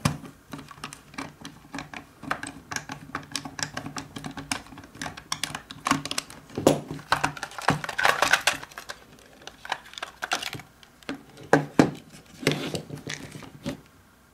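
Plastic housing of a Kidde Nighthawk carbon monoxide detector being taken apart: a screwdriver backing out a case screw, then a run of plastic clicks, snaps and rattles as the case halves are worked loose and pried open. The clicking is busiest in the middle and again near the end.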